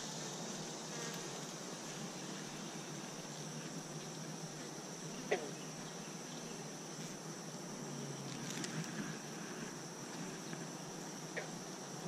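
Honey bees buzzing steadily around an open hive, a frame thick with bees held up close. A single sharp click about five seconds in.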